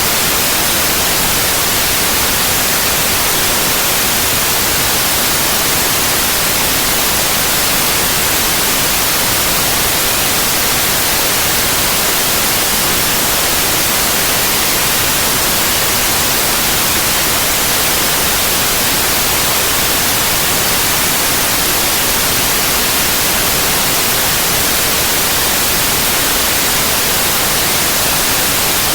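Steady white noise: an even hiss, brightest in the high end, with no change or interruption.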